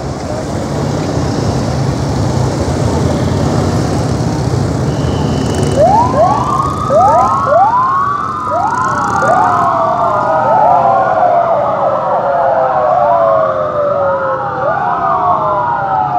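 Police motorcycle engines running as the bikes pass, then from about six seconds in several police sirens wailing at once. Each siren sweeps up quickly and falls away slowly, and they overlap out of step with one another.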